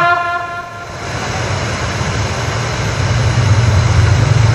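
The last sung note of the call to prayer dies away in an echoing tail during the first second. It leaves a steady low rumbling noise that swells slightly toward the end.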